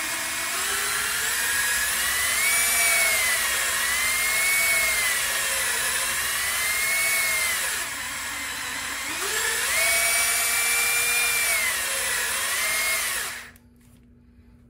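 Power drill spinning a Scotch-Brite pad taped to a socket on an extension, honing out a rough lifter bore in a cast iron engine block. The motor's whine rises and falls as the trigger is worked, eases off briefly around the middle, picks up again, and stops suddenly shortly before the end.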